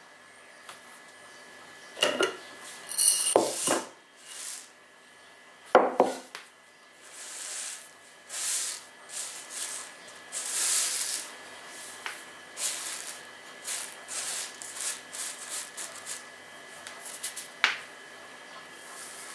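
Dry uncooked rice tipped out of a glass jar onto a tabletop with a few rattling clatters, then swept and spread across the table by hand in a run of brushing swishes, with a sharp tap near the end.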